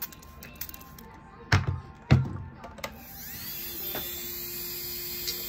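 Two knocks, then an electric micromotor rotary engraving tool spins up with a rising whine about three seconds in and runs on with a steady hum.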